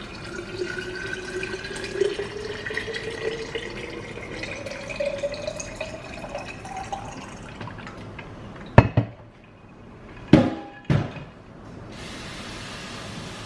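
Water poured from a pitcher into an insulated water bottle, the pitch of the filling rising steadily as the bottle fills. About nine seconds in come three sharp knocks.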